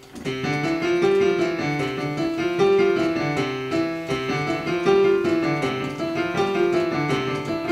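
A child playing a digital piano: a quick, even run of single notes in a repeating figure, a beginner's practice piece. The playing starts right at the beginning, following a short pause.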